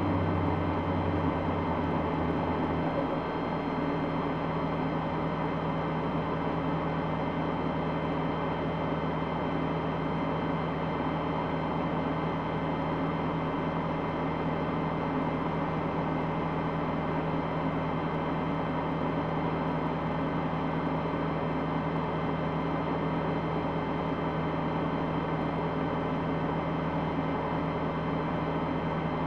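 Steady hum of the tow truck's engine idling, heard from inside the cab; a lower layer of the hum drops away about three seconds in.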